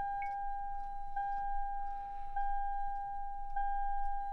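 A Toyota Sienna's electronic warning chime: one steady pure tone, re-struck about every 1.2 seconds and held between strikes, repeating four times.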